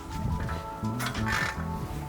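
Background music with a bass line of short held notes changing in a steady rhythm.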